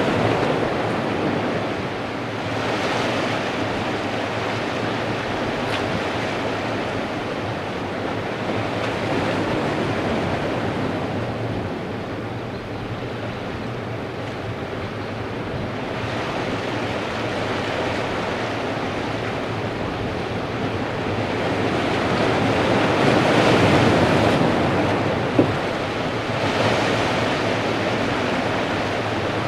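Ocean surf washing against the boulders of a rock wall, surging and easing every few seconds, with wind buffeting the microphone. A single brief click sounds near the end.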